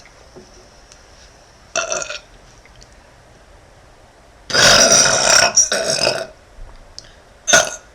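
A young woman burping: a short burp about two seconds in, then a long, loud burp lasting nearly two seconds from about halfway through, and a brief one near the end.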